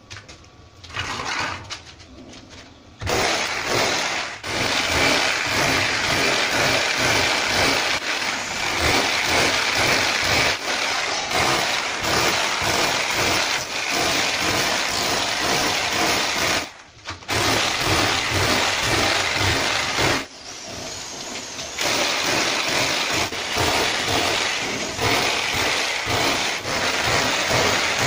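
Corded hammer drill biting into a concrete wall in repeated bursts, pecking shallow key holes to roughen the smooth, painted surface so cement render will grip before tiling. After a short burst about a second in, it runs almost continuously from about three seconds, with one brief stop and a quieter stretch past the middle.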